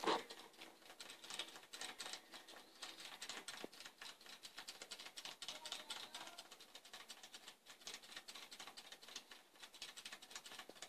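Several New Zealand White rabbits chewing clover, greens and carrot: a fast, irregular patter of small crunching clicks.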